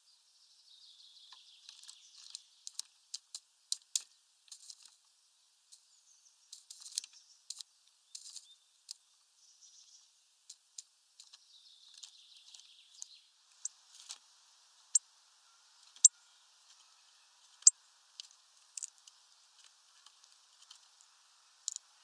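Great spotted woodpecker pecking at a mesh feeder bag: irregular sharp taps, a few of them much louder, over a faint high hiss.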